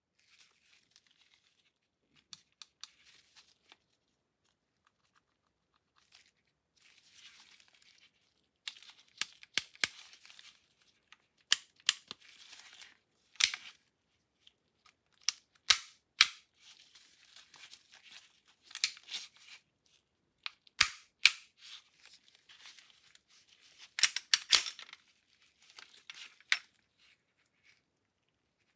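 A VIS 100 M1 pistol being handled and field-stripped: a run of sharp metal clicks and snaps at irregular intervals as its controls are worked and the slide is moved, with softer sliding scrapes of the slide on the frame between them.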